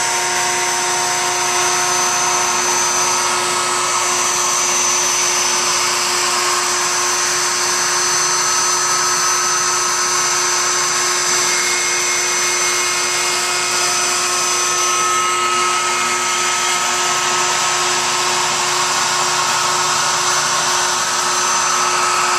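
CNC router's spindle motor running and cutting wood as it surfaces off the waste of a glued-in male inlay piece, together with dust-collection suction through the brush dust shoe. A steady whine over an even rush of air.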